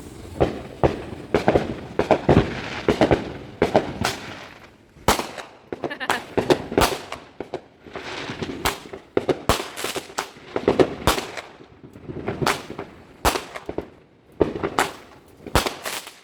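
Fireworks going off: a continuous run of sharp cracks and pops, coming irregularly and often in quick clusters, with crackling between them.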